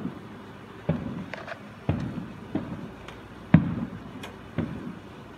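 Aerial fireworks bursting: a run of about seven bangs with rumbling tails, spaced roughly half a second to a second apart. The loudest comes about three and a half seconds in.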